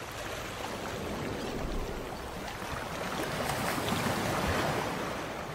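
Ocean surf: a steady rush of waves and water noise that swells to its loudest about four seconds in, then eases off.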